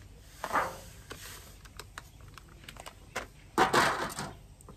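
A foil-lined seasoning bag rustling and crinkling as dry seasoning is shaken out of it over meat, with a short burst about half a second in and a louder one near the end as the bag is handled and set down. Light clicks and taps come in between.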